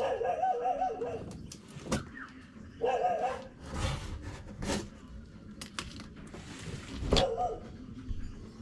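A dog gives three wavering calls, the first about a second long and two shorter ones later. Between them come sharp clicks and knocks from a cardboard box being opened.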